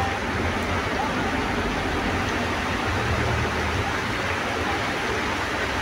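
Steady rush of heavy rain and water heard from inside a moving bus as it drives through a flooded street, with the low hum of the bus's engine underneath.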